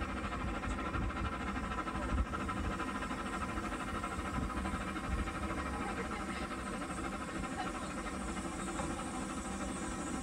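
Steady running noise of a steam yacht's vee-twin, non-condensing steam engine, its exhaust blowing up the funnel, heard on deck while the boat is underway.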